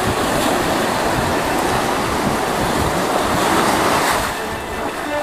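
Shallow surf washing and splashing around a hooked tiger shark, swelling to a loud splash about three to four seconds in as the shark thrashes in the shallows, then easing.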